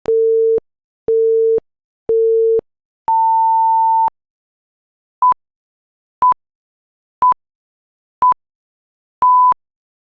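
Electronic countdown beeps: three low beeps a second apart, then one longer, higher beep, like a race start. After a short pause, short high pips once a second, the last pip a little longer, marking the end of the count.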